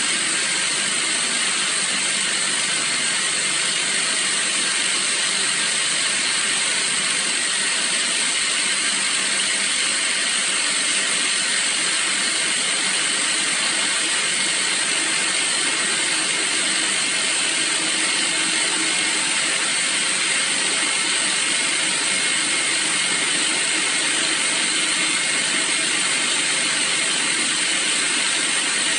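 Hydrostatic pressure-test pump running steadily, an even mechanical noise with no change in level, as it builds water pressure in the hose toward its burst point.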